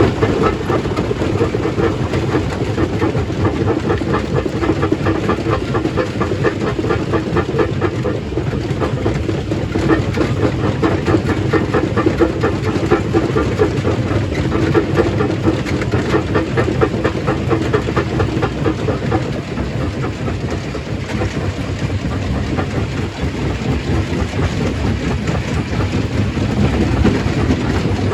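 Stone crushing machine running under load, rock clattering through it in a fast, steady rattle, a little quieter for a few seconds past the middle.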